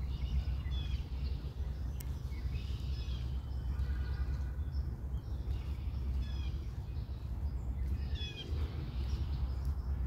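Several small birds chirping and calling repeatedly, with short high whistled phrases, over a steady low rumble.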